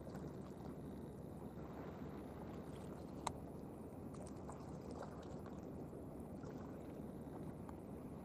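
Steady rush of shallow water with wind on the microphone, and one sharp click about three seconds in.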